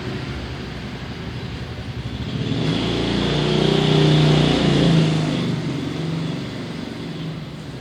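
A motor vehicle passes close by on a street. Its engine grows louder to a peak about four to five seconds in, then fades away.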